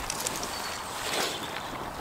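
Woodland stream running steadily, with a few faint clicks and a brief louder noise about a second in.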